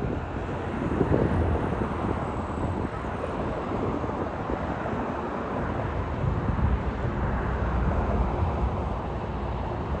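Wind buffeting the microphone outdoors: a gusty low rumble that swells about a second in and again later.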